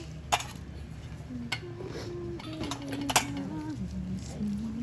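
Soft background music of held, stepping low notes, with two sharp clicks, one about a third of a second in and one just past three seconds.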